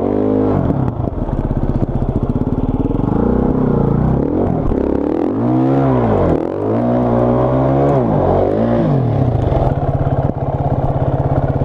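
KTM enduro dirt bike engine revving up and down over and over as the bike is ridden through deep mud ruts, then settling into a steadier note near the end.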